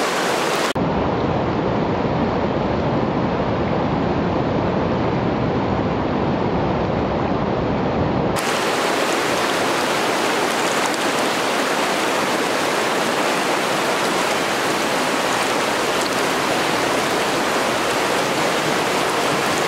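River water rushing steadily over shallow rocky riffles. About a second in the rush turns deeper and duller, and it goes back to a brighter hiss about eight seconds in.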